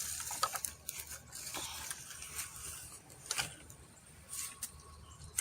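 Light rustling and scattered soft clicks of someone walking through a garden, brushing past plants.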